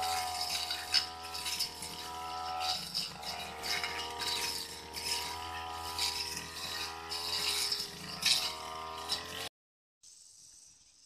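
Backpack brush cutter's small petrol engine running at high speed while cutting grass and ferns, its whine wavering up and down with the load, with irregular surges of hissy noise as the blade strikes the vegetation. Near the end the sound cuts off suddenly and a faint, steady high chirring of crickets follows.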